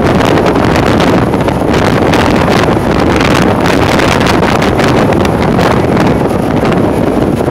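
Steady wind rushing over the microphone of a camera on a moving motorcycle, mixed with the motorcycle's running and road noise.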